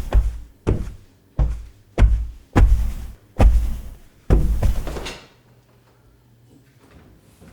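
A run of about seven heavy thumps, roughly one every two-thirds of a second and slowing slightly, stopping about five seconds in.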